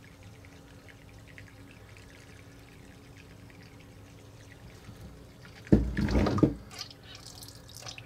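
Faint trickle of dirty wash water running out of a toy washing machine's drain hose into a pan. About six seconds in comes a sudden loud thump, then a second of clattering handling noise.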